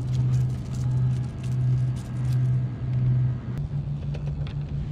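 A low, steady motor hum that pulses about once every three-quarters of a second, evening out about three and a half seconds in, with light clicks and rattles over it.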